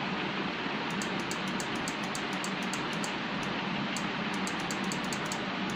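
Automotive 5-pin 12 V relay clicking rapidly and irregularly, about five or six clicks a second, starting about a second in. It is chattering on and off as the fog light flickers with the passing switch pressed while the light is on. A steady background hiss runs underneath.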